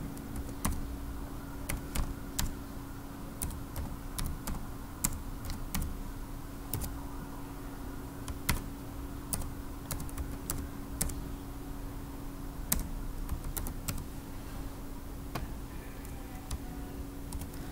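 Computer keyboard typing: irregular, scattered key presses. A steady low hum runs underneath.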